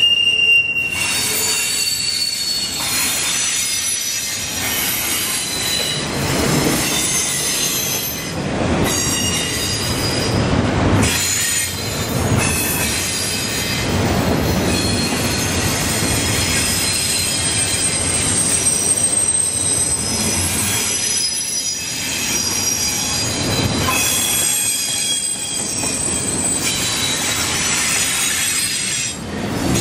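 Norfolk Southern double-stack intermodal freight train rolling past, its cars making a steady rumble. High-pitched wheel squeal comes and goes throughout.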